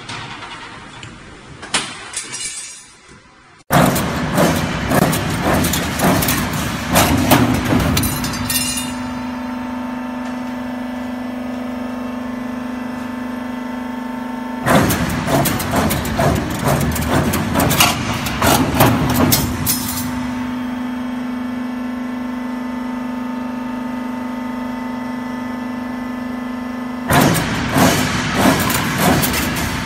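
CNC rebar bending machine running: a steady motor hum with a held tone, broken three times by spells of a few seconds of rattling and clanking metal, starting about four, fifteen and twenty-seven seconds in.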